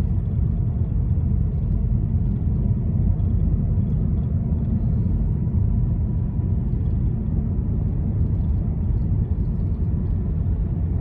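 A loud, steady low rumbling noise with no distinct events in it, starting and stopping abruptly.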